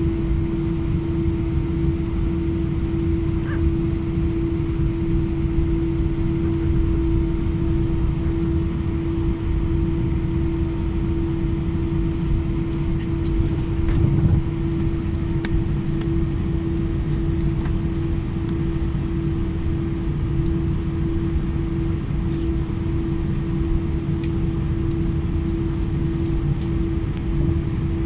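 Airliner cabin noise while the jet taxis on the ground: the engines at low power give a steady hum over a low rumble.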